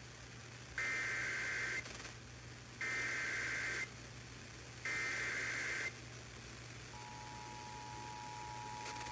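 Emergency Alert System SAME header: three one-second bursts of buzzy digital data tones, a second apart, followed about seven seconds in by the steady two-tone EAS attention signal, announcing a severe thunderstorm warning relayed over broadcast radio.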